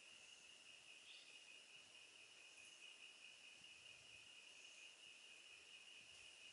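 Faint, steady high-pitched insect drone of forest insects such as crickets, one unbroken tone over a light hiss.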